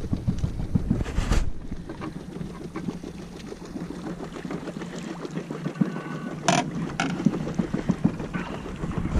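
Wind rumbling on the microphone on an open boat, heaviest in the first second and a half, then easing. A sharp knock or splash sounds about six and a half seconds in, with a few lighter ones after it.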